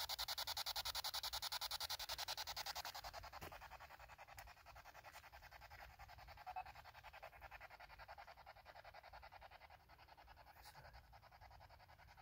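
Ghost-hunting spirit box sweeping through radio stations: rapid, even chopping of static at about seven pulses a second. It fades after about three seconds but keeps going.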